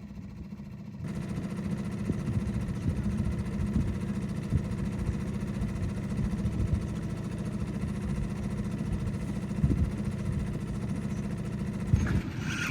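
Boat outboard motor running steadily at low trolling speed, coming in about a second in.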